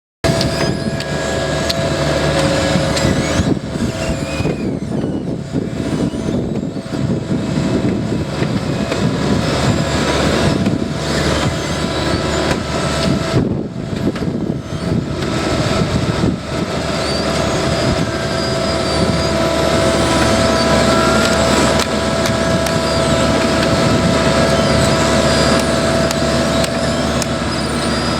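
Engines of asphalt paving machinery running steadily under load, with a steady high whine over the engine note.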